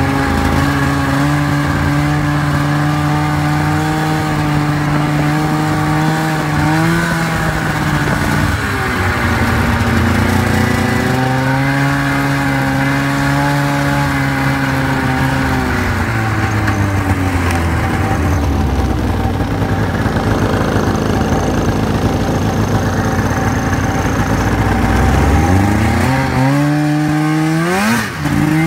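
Polaris snowmobile engine running under way, its pitch rising and falling with the throttle. It eases off low through the middle, then revs up hard near the end.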